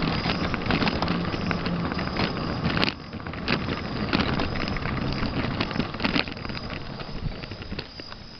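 Wind buffeting the microphone of a camera moving fast along a path, with a low rumble and frequent sharp knocks and rattles from the jolting ride. The noise drops suddenly about three seconds in and eases near the end.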